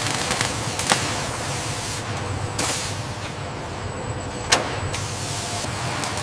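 Assembly-line machinery ambience: a steady mechanical hiss with a brief hissing swell partway through and two sharp clanks, about a second in and again about four and a half seconds in.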